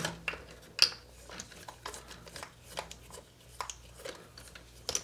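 Plastic RC rock crawler chassis being handled and turned over on a wooden workbench: scattered light clicks and knocks of plastic parts against each other and the bench.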